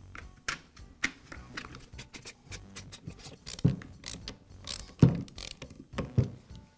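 Irregular clicks and knocks of a Bostitch nail gun's magazine being handled and fitted onto the tool, then screwed down with a hand screwdriver; a few louder knocks come in the second half.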